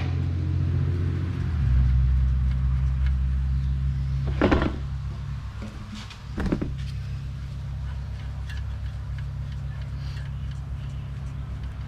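Two short knocks, about two seconds apart, over a steady low hum, as the oil pan's 17 mm drain plug is worked loose with tools under the car.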